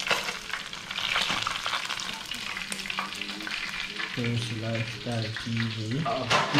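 Fish frying in a pan of hot oil, a steady crackling sizzle, with occasional clicks of a metal spatula against the pan.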